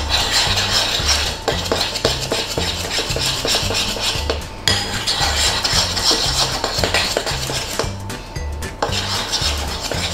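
A small metal spoon stirring and scraping around a ceramic mixing bowl, with quick repeated clinks against the bowl's side, over background music.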